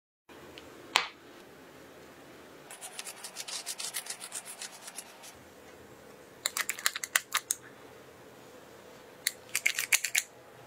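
A sharp click about a second in, then bursts of crisp crackling and scraping as a metal ice cream scoop presses ice cream onto a split, crusty sugar-topped bun.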